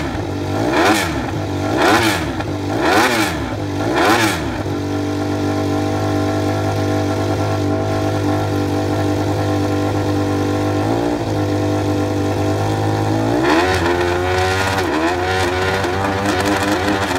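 KTM RC16 MotoGP bike's 998 cc V-4 engine, blipped four times in quick succession, then idling steadily, then revved again in a few short rises near the end. The caption says it allegedly uses a screamer firing order.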